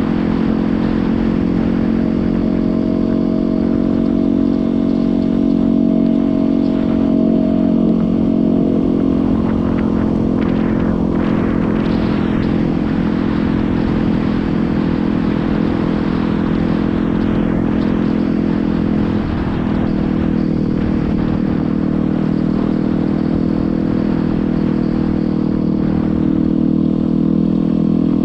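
Yamaha WR250R dirt bike's single-cylinder four-stroke engine running at a steady cruising speed, with wind rumbling on the camera microphone.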